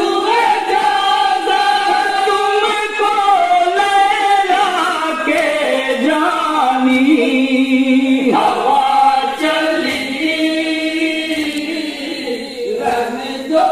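A group of men singing a Shia nauha (Muharram lament) in unison, unaccompanied, with long held, wavering notes.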